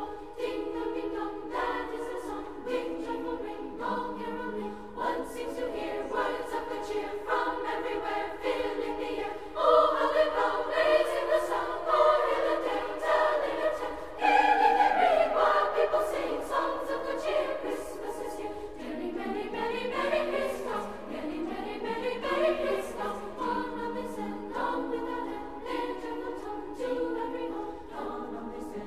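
Choir singing a cappella: held chords that change about once a second, louder for a stretch in the middle.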